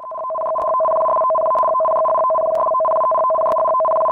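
Tsunami-warning alert tone: two steady electronic pitches sounding together, loud and unbroken, starting suddenly out of silence.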